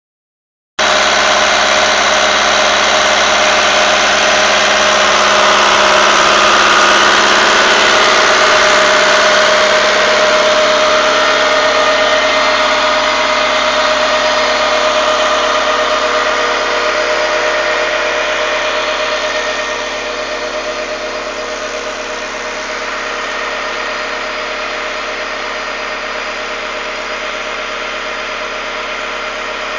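Fiatagri 82-94 DT tractor's diesel engine running steadily while driving a PTO-mounted Caprari irrigation pump. The sound starts about a second in and grows somewhat quieter in the second half.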